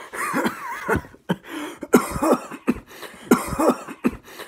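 A man coughing in three or four strained fits, with wavering vocal sounds between them.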